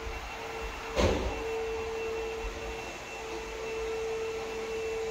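A steady machine hum with a fainter high whine over a low rumble, and a single sharp knock about a second in.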